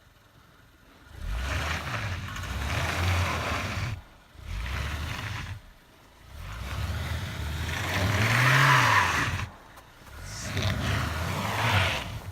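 A car engine revving hard in four separate bursts with short lulls between, the third rising and then falling in pitch, over a hiss of wheels spinning in snow: a stuck car rocking and trying to drive out of deep snow.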